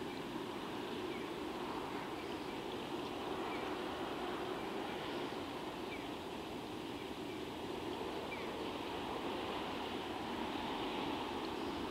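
Steady distant rumble of an EF65 electric locomotive and its train starting off slowly far down the line, mixed with outdoor ambience, growing slightly louder near the end. A few faint short chirps sound through it.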